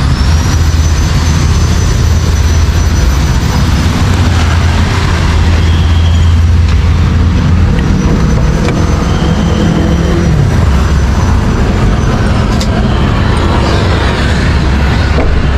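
A motor vehicle engine running, a steady low rumble that shifts a little in pitch about ten seconds in, with a faint thin high whine that stops about twelve seconds in.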